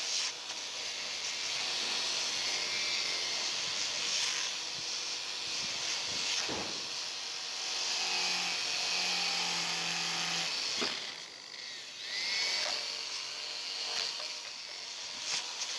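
Electric drill spinning an abrasive wheel against the rusty steel of an old adjustable wrench, scrubbing off rust. The motor eases off briefly about two-thirds of the way through, then speeds up again with a rising whine.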